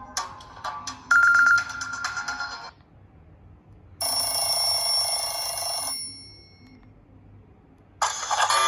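Nokia 7230 mobile phone ringtones playing one after another. A short electronic tune of clicky notes stops about two and a half seconds in. After a pause, a steady ringing tone of several pitches sounds for about two seconds and trails off, and the next ringtone starts near the end.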